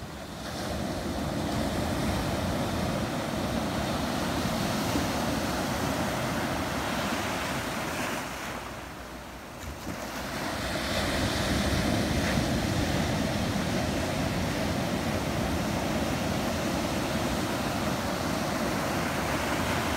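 Ocean surf washing onto a beach in a steady rush, with wind on the microphone. It eases about eight seconds in, then swells again as the next waves break.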